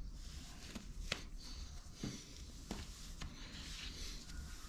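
Stretchy fabric neck gaiter rustling faintly as it is pulled over the head and face, with a few soft ticks of handling.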